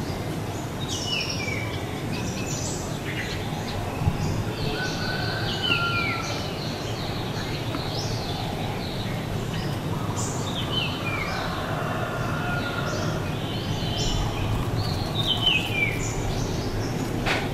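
Birds calling outdoors: short chirps sliding down in pitch, repeated in bursts every few seconds, over a steady low background rumble.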